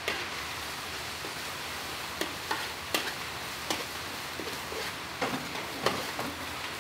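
Spice paste sizzling in hot oil in a steel wok while a metal spoon stirs it, with several sharp clinks and scrapes of the spoon against the pan.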